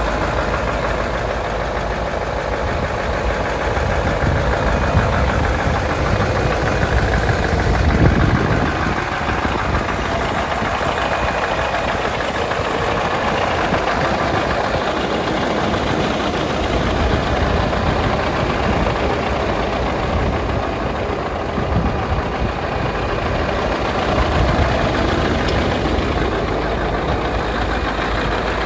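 Scania truck's diesel engine idling steadily.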